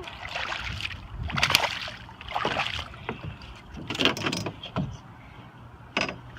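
Irregular rushing and splashing of water around a small fishing boat, with a few sharper splashes and a low rumble of wind on the microphone.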